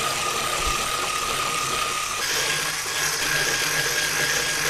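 Electric hand mixer with wire whisk beaters running steadily, whipping egg and sugar in a glass bowl into a light foam. Its whine steps higher about halfway through.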